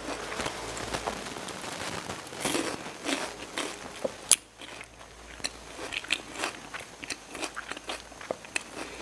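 Close-miked chewing of crisp bilimbi (belimbing wuluh) fruit dipped in sambal: a run of short wet crunches, with one sharp loud crunch about four seconds in.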